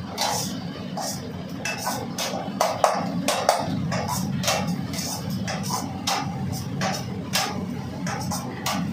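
Metal ladle clanking irregularly against a wok during stir-frying, about two strikes a second, over the steady roar of a commercial kitchen burner.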